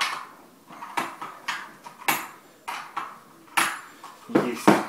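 Hard plastic clicks and knocks as the side cover of a chainsaw (the chain-brake cover) is worked loose by hand. There are about two sharp clicks a second, and the loudest pair comes near the end.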